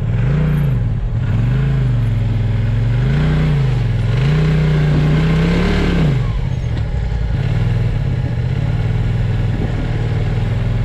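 Polaris RZR XP Turbo side-by-side's turbocharged twin-cylinder engine revving up and down in repeated surges under load as it climbs a rock ledge, then running steadier at lower revs after about six seconds.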